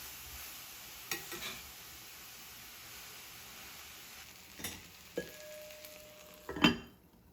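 Food sizzling in a frying pan while it is stirred with a utensil, with a few sharp clinks, one of them ringing briefly. The loudest clatter comes near the end, and then the sizzling cuts off suddenly.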